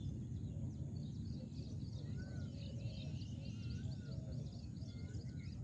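Birds chirping repeatedly in short arching calls over a steady low rumble of outdoor background noise.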